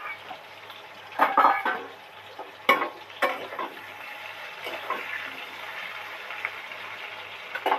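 Large potato chunks frying in hot oil in a kadai, a steady sizzle, with a metal spatula clinking and scraping against the pan a few times in the first few seconds.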